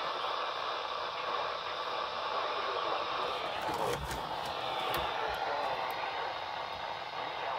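Steady radio static hiss from a weather radio receiver in a gap between broadcast warnings, with no message playing.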